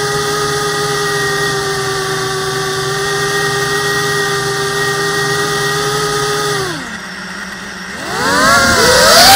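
Tiny whoop FPV drone's small brushless motors whining steadily at idle while the drone sits armed on the ground. About seven seconds in, the whine falls away. About a second later it comes back as a louder, rising and wavering whine as the throttle comes up.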